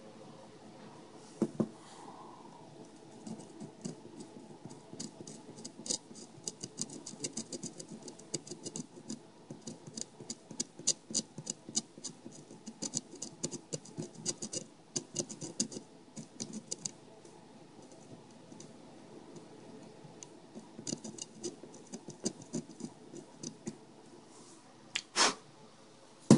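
Sharp knife blade scraping the solder mask off a GPS circuit board to expose the copper traces: runs of rapid little scratches, pausing for a few seconds past the middle, with a single louder knock near the end.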